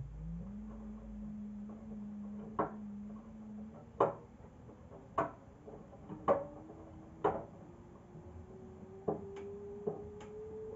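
Arctic front-loading washing machine speeding up into the final spin of a 60° cottons cycle. Its motor whine climbs in pitch, holds briefly, then keeps rising slowly, with sharp knocks about once a second as the wet load turns in the drum.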